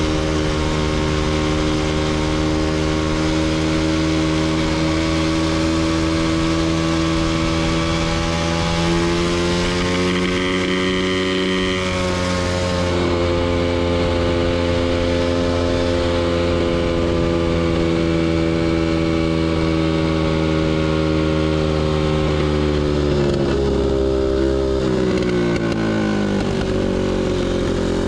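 Super Pocket Bike X7's small two-stroke engine running while ridden, at a mostly steady pitch. The pitch rises a little about ten seconds in, falls off as the bike slows with about five seconds left, then climbs again.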